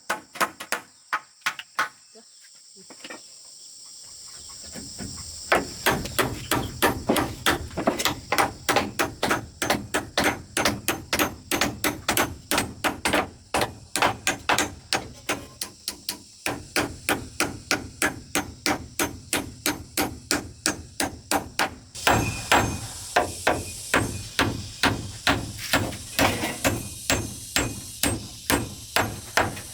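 A hand tool striking over and over in a fast, even rhythm of about three blows a second, with a short lull near the start.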